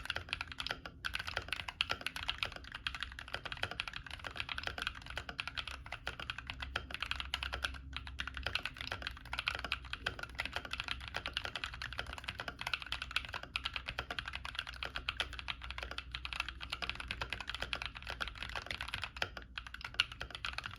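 Continuous fast typing on a Womier K66 mechanical keyboard with Zenclack Pleiades linear switches and ASA profile keycaps: a dense stream of key clacks, with a few short pauses.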